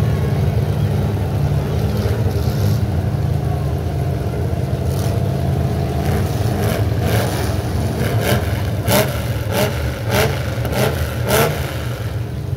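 Several demolition-derby trucks idling together with a deep, steady rumble; from about six seconds in, engines are revved in short, repeated blips.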